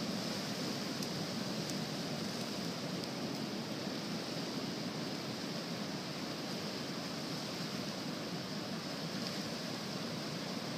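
Ocean surf washing onto a beach: a steady, even rush of breaking waves with no single crash standing out.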